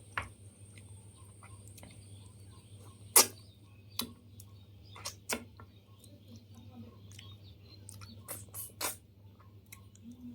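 Eating sounds of rice and fish eaten by hand: sporadic sharp clicks and taps, the loudest about three seconds in and a quick cluster near the end, over a faint steady low hum.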